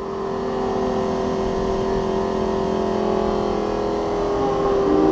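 Lamborghini Gallardo LP 570-4 Super Trofeo race car's V10 engine running at a steady, unchanging pitch, with a second tone joining near the end.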